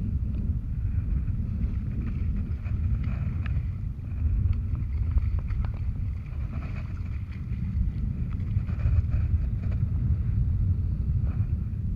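Wind buffeting an action camera's microphone, a steady low rumble, with faint light splashing from a hooked sea bass thrashing at the surface as it is drawn into a landing net.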